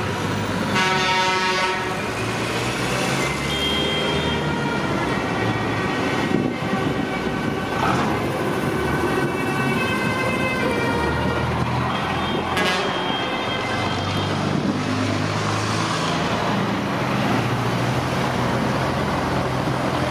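Classic diesel trucks driving past with their engines running, and truck horns sounding several times over them.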